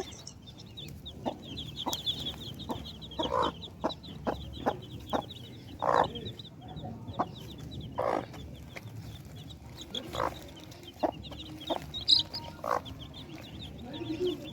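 Chickens clucking in short calls, a louder one every two seconds or so, over a faint, fast high-pitched chirping.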